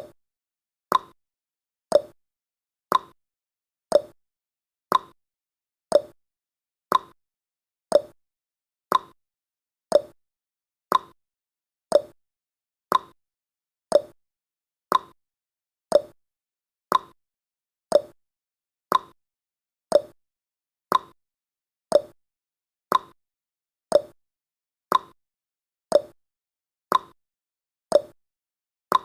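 Clock tick-tock sound effect of a countdown timer: a short click once a second, alternating between a higher tick and a lower tock.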